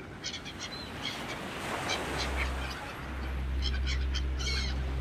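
Gulls calling in many short, high squawks, some overlapping. A steady low hum comes in about two seconds in.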